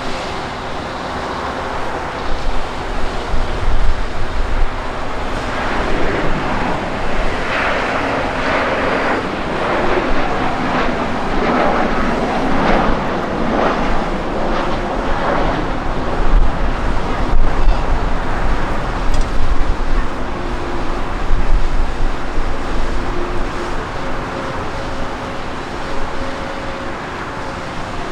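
McDonnell Douglas MD-11 freighter's jet engines running. The noise grows louder and rougher from about six seconds in, then eases after about sixteen seconds.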